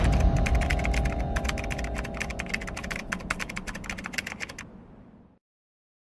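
Rapid, irregular typing clicks, like a keyboard or typewriter sound effect, over the slowly fading tail of a deep boom. Both die away about four and a half seconds in, and silence follows.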